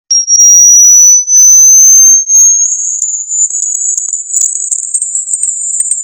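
A pure high-pitched hearing-test tone rising slowly and steadily in pitch, reaching about 7,800 Hz. It is very loud and harsh for the first two seconds, then a little quieter, with faint ticks under it from about three seconds in.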